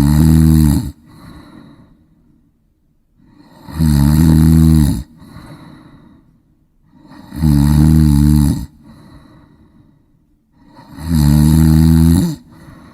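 A person snoring in a steady rhythm: a loud, low snore about a second long roughly every three and a half to four seconds, four times, each followed by a softer breath.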